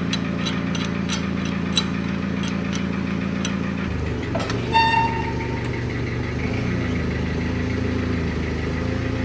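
Forklift engine running steadily, its note shifting about four seconds in, with sharp metallic clinks from the lifting chain in the first few seconds and a brief high tone about five seconds in.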